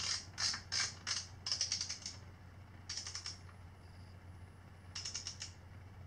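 Ratchet clicking from a small torque wrench with a long hex bit, being swung back and forth to snug up the steering clamp bolts: a run of rapid clicks over the first two seconds, then two short bursts about three and five seconds in.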